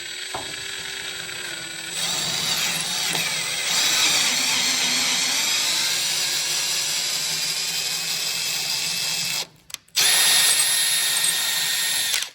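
Power drill driving a thread tap into a rusty, crusty bolt hole to clean up the damaged threads. The motor runs steadily with a whine, gets louder about two seconds in, stops briefly near the end and starts again.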